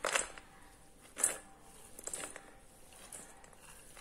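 Sprouted moong beans and grated carrot being tipped off a plate into a steel mixing vessel: a few short rustling patters as the food lands, the loudest at the start and about a second in.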